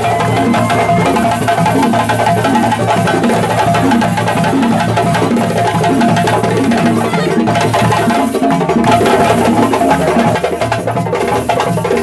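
West African drum ensemble playing a fast, continuous rhythm: hand-played djembes, one fitted with a metal rattle plate, over a low melodic line from stick-played bass drums.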